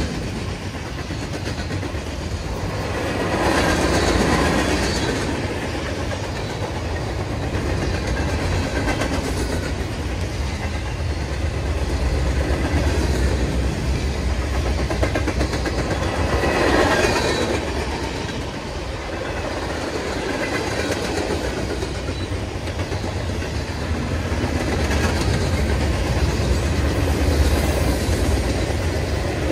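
Freight cars of a mixed manifest train rolling past at close range: a steady rumble and rattle of steel wheels on the rails, growing louder twice, a few seconds in and again about midway.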